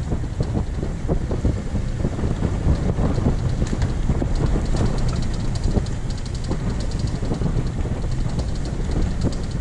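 Vehicle driving on a gravel dirt road: a steady low rumble of tyres and engine, with a continuous scatter of crackles from stones under the tyres and wind noise on the microphone.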